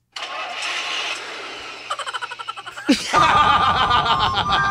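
Sound effects played from a phone: a harsh hissing noise that breaks into rapid pulses, then about three seconds in a loud electronic siren-like alarm with steady high tones.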